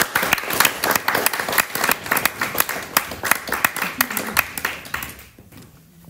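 A church congregation applauding, with many hands clapping densely, dying away about five seconds in.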